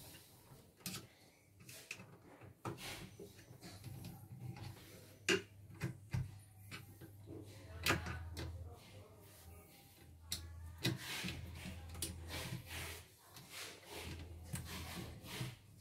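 Screwdriver and hand-handling noises at the loose drive motor of a CNY portable embroidery machine: scattered clicks, small knocks, scraping and rubbing as the screws and motor mount are worked, with a low hum coming and going in the second half.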